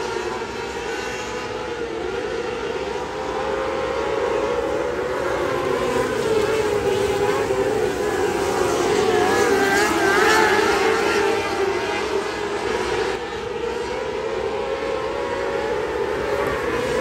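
A pack of 600cc micro sprint cars racing, their high-revving motorcycle engines running together in a loud, continuous drone. The pitch bends up and down as the cars go through the turns and down the straights, and it is loudest about ten seconds in.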